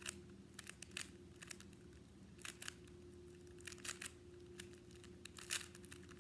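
Rubik's Cube being turned by hand during a solve: quick clusters of plastic clicks as the layers snap round, coming in irregular bursts with short pauses between.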